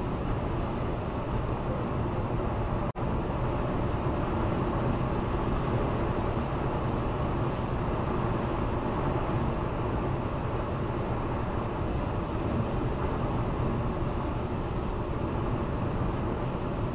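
Steady tyre and wind noise of a car cruising at highway speed, about 78 mph, heard from inside the cabin. The sound cuts out for an instant about three seconds in.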